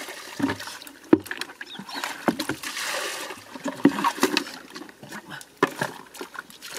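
Water being bailed out of a swamped wooden boat with a bucket: rushes of water poured out, and many sharp knocks and clatters of the bucket and hands against the wooden hull.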